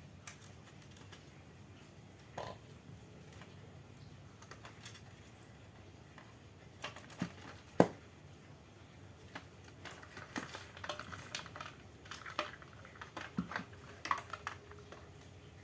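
Scattered light clicks and taps of small parts being handled and fitted by hand, with one sharp click a little past halfway and busier small clicking toward the end.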